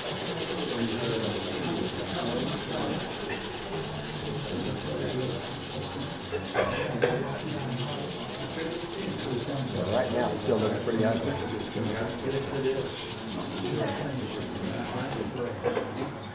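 Continuous rubbing and scraping on a brass lamp back as it is worked over a mandrel by hand, pushing dents back out of the metal.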